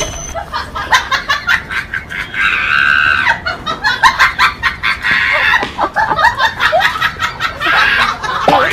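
Laughter: rapid, repeated bursts of laughing and snickering throughout.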